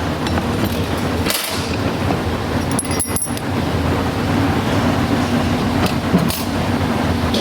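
Steady workshop background noise, with a few short clicks and clinks of metal transmission parts being handled.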